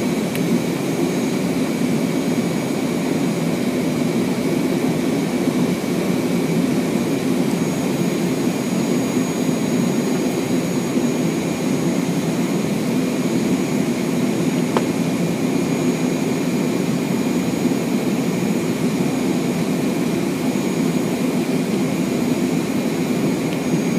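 Steady flight-deck noise of a Fokker 100 jet airliner on final approach: airflow and its Rolls-Royce Tay turbofans, even and unchanging, with a faint steady high whine above.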